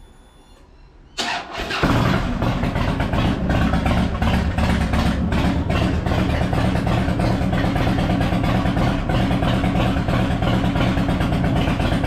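Harley-Davidson Dyna Fat Bob's air-cooled V-twin cranked on the electric starter, catching after about half a second, then idling steadily. This is the warm-up run after an oil change, bringing the engine to operating temperature before the oil level is checked.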